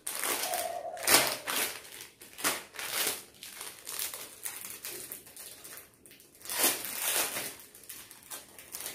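Packaging being handled and unwrapped, crinkling and rustling in a run of uneven bursts, loudest about a second in and again just past six seconds.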